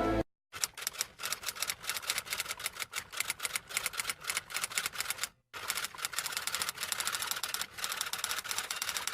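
Rapid typing sound effect: a fast, uneven run of key clicks, with a brief pause about five seconds in.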